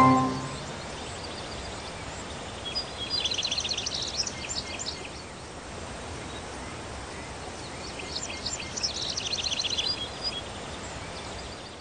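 Outdoor nature ambience: a steady background hiss with a bird singing a quick chattering phrase twice, about three seconds in and again about eight seconds in.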